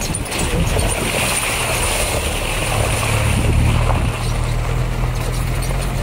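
Four-wheel-drive vehicle's engine running with a steady low hum while driving over a gravel track, with rough tyre and gravel noise, heard from inside the cabin.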